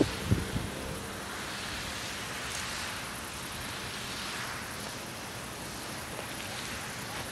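Steady outdoor hiss of air and distant background noise, with a few brief wind buffets on the microphone in the first second.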